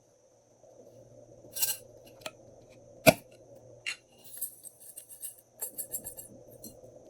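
Glossy slime being squished and mixed by hand: scattered sticky clicks and pops, a sharp click about three seconds in, then a dense run of crackling.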